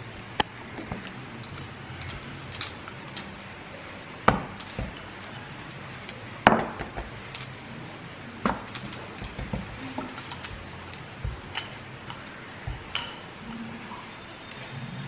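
Rolling pin and hands working graham cracker dough on a silicone mat over a stone counter: irregular knocks and taps, the loudest two a little after 4 seconds and about 6.5 seconds in.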